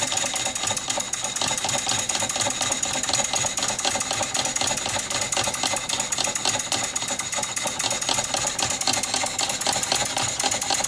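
Small vertical model steam engine running on compressed air at about 4 to 5 pounds of pressure, driving a toy scroll saw: a rapid, steady mechanical clatter of the engine's strokes and the saw's reciprocating blade.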